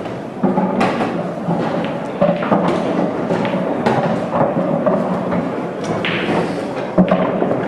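Pool balls clicking and knocking: the cue striking the cue ball and balls hitting each other and the cushions, a series of sharp clicks scattered irregularly, the loudest about seven seconds in, over a steady din of a busy hall.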